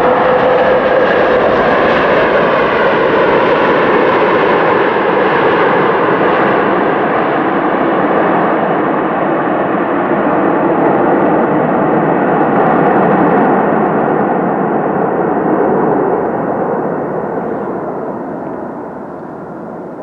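Airplane on landing: loud, steady engine and air noise with a faint whine in the first few seconds. It fades over the last few seconds as the plane passes.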